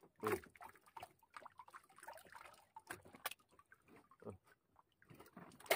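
Faint wet squirts, drips and small clicks from a freshly caught squid held over the side of the boat, still spurting water and ink.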